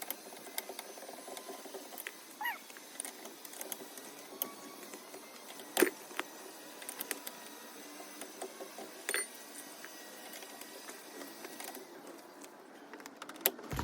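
Scattered metallic clicks and knocks of a wheel wrench working a car's lug nut loose, the two strongest about six and nine seconds in, with a short rising squeak a couple of seconds in.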